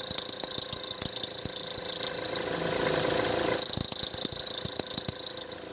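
Mahindra XUV500's accessory drive (fan) belt running over the alternator pulley with the engine idling, giving a steady high-pitched whine over a fast, irregular ticking. The whine breaks off for about a second in the middle. It is a persistent belt noise that three belt replacements have not cured.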